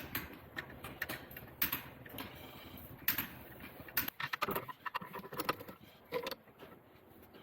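Irregular metallic clicks, clinks and knocks of hand tools and steel brake-line fittings being handled during brake-line work.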